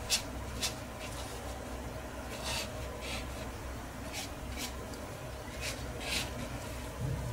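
A watercolour brush flicking quick strokes across rough watercolour paper: about eight short scratches at an uneven pace, over a low steady hum.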